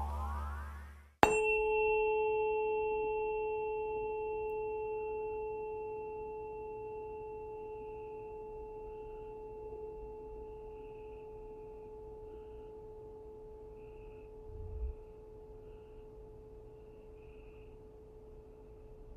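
Music with a rising glide ends about a second in. A single metallic tone is then struck once and rings on as one steady pitch, slowly fading. There is a faint low bump near the end.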